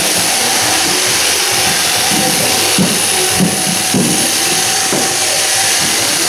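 Machine sheep-shearing handpieces running steadily as they cut through fleece, a continuous buzzing hiss.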